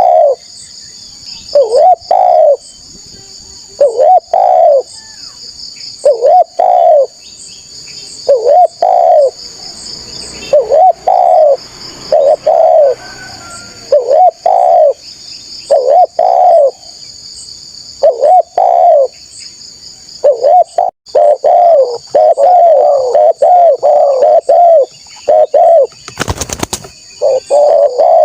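Spotted dove (tekukur) cooing loudly, repeating its short coo phrase every couple of seconds and then in a quicker run of coos over the last third. A steady high-pitched chirring runs underneath, and there is one short loud crackle near the end.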